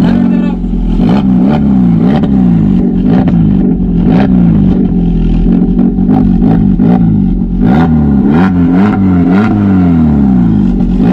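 Maruti Ignis engine revved in quick repeated blips through an exhaust fitted with a valvetronic cutout valve, heard close to the tailpipe. The note rises and falls about twice a second.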